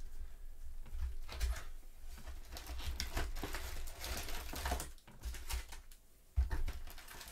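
Cardboard trading-card box being opened and its foil-wrapped packs handled by gloved hands: rustling, crackling and scraping, quieter after about five seconds, with a low thump near the end.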